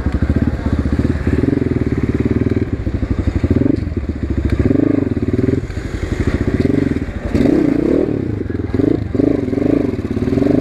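Asian Beast 250 dirt bike engine running with a loud exhaust at low road speed. Its pitch rises and falls several times with the throttle over a steady pulsing beat.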